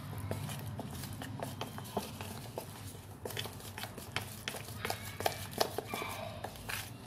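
Wooden spoon stirring thick cake batter in a plastic bowl: irregular clicking and knocking of the spoon against the bowl, over a steady low hum.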